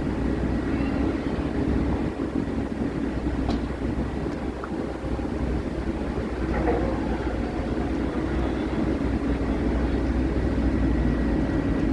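Steady low drone of a car ferry under way, its engines running at an even cruising speed.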